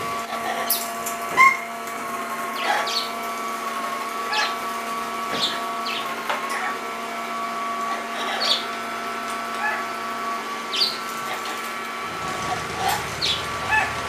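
A robot vacuum cleaner running with a steady hum, while an Amazon parrot and an umbrella cockatoo give short, sharp calls every second or so.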